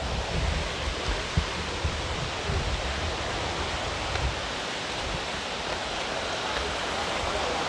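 Steady rushing of flowing water from a nearby stream, with a few soft low thumps and a sharp click in the first three seconds.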